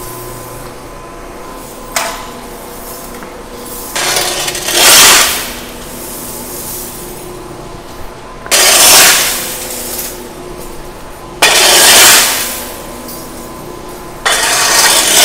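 Blue 1045 steel lathe chips shoved and scraped across a concrete floor with a push broom: four loud, clinking, rattling strokes about three seconds apart, over a steady shop hum.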